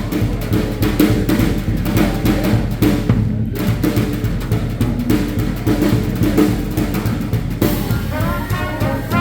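Small hot-jazz swing band playing an instrumental passage, the drum kit to the fore over a steady walking bass. The horns come back in near the end.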